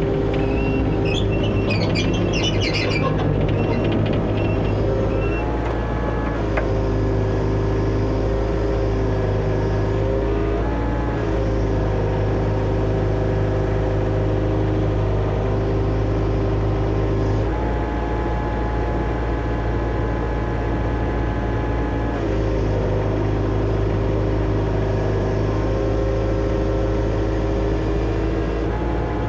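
John Deere excavator's diesel engine running steadily while the hydraulics work. Its tone steps down and back up several times as the controls load and release the pump. There are a few high chirps in the first three seconds.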